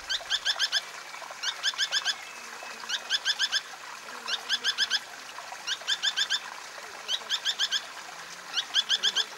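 A bird repeating a short phrase of about five quick notes roughly every second and a half.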